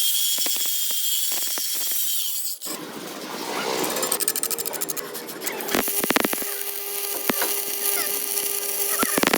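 Metalworking noise: a steady high hiss and crackle broken by sharp clicks and knocks, in several segments that change abruptly.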